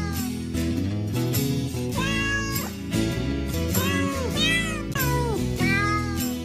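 Domestic cat meows, several drawn-out calls that each rise and then fall in pitch, most of them in the second half, over background music with a steady bass line.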